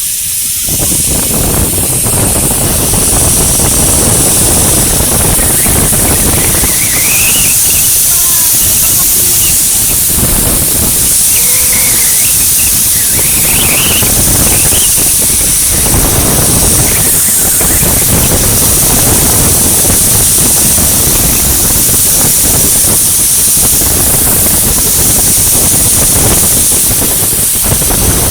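Wind rushing hard over the microphone on a fast zipline ride, a loud steady roar with a deep rumble underneath. A few faint high squeals rise and fall about a third and halfway through.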